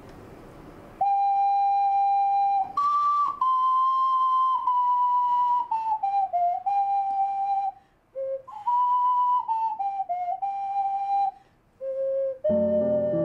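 Ocarina playing a slow melody of clear, held notes, with two short breaks; an acoustic guitar comes in near the end.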